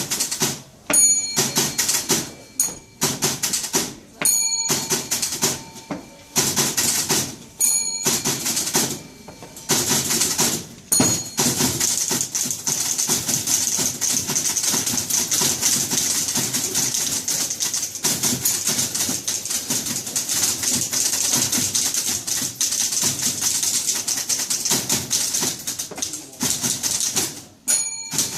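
Several manual typewriters played together as percussion: rhythmic key clatter, broken by short pauses in the first ten seconds, with carriage-return bells dinging several times. From about eleven seconds in, the typing becomes a dense, steady clatter, and a bell rings again near the end.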